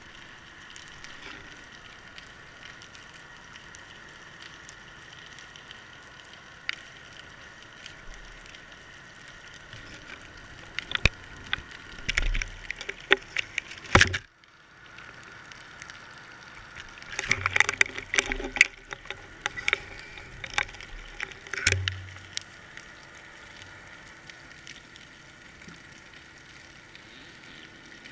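Underwater sound through a GoPro's waterproof housing on a fishing line: a steady faint hiss, broken around the middle by a burst of clicks, knocks and low thumps, and again a few seconds later, as the housing bumps and scrapes on the rocky bottom.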